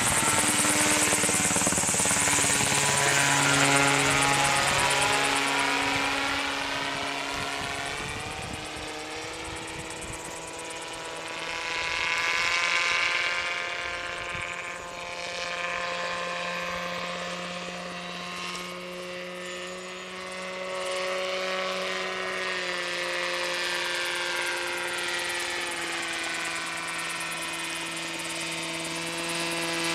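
Engine and propeller of a self-built radio-controlled autogyro with a 3.2 m rotor, running in flight. The pitch shifts a little and the sound is loudest in the first few seconds, fades, swells briefly, then holds steady as the aircraft moves about.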